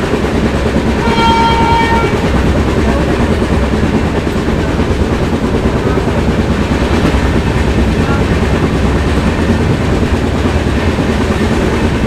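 Steady running noise of a passenger train at speed. About a second in, the WAP-7 electric locomotive's horn sounds once, for about a second.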